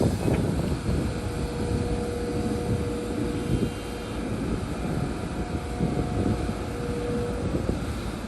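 Heavy diesel earthmoving machinery running, a steady low rumble with a steady whine from about a second in until near the end.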